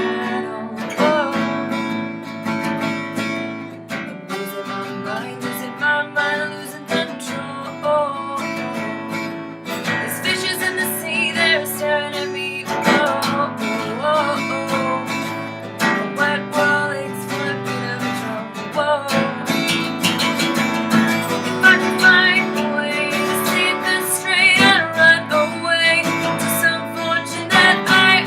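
Acoustic guitar strummed and picked, playing a song at a steady rhythm.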